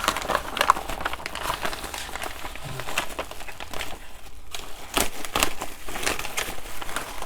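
Parcel packaging being handled and unwrapped by hand, rustling and crinkling with scattered small clicks and scrapes.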